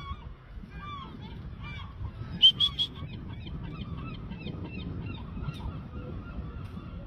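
Birds calling in a flock: many short repeated calls overlapping at different pitches, with three loud calls in quick succession about two and a half seconds in, over a steady low background noise.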